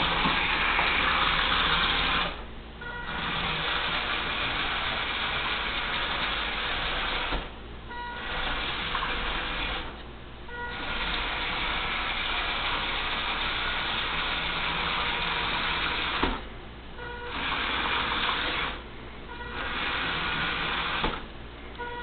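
Roomba robot vacuum's drive motors whirring as it is driven by remote control across a hardwood floor, stopping and starting again about six times with pauses of under a second.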